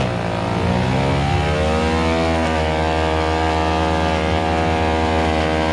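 Stunt motorcycle engine revving: the pitch dips right at the start, climbs over the first couple of seconds, then holds steady at high revs.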